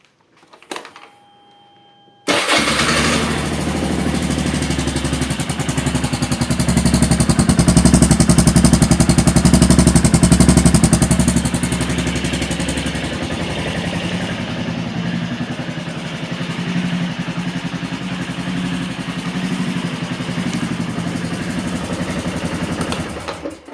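A small petrol engine comes in suddenly about two seconds in and runs loudly, swelling louder for a few seconds, then settling to a steady run before it stops just before the end.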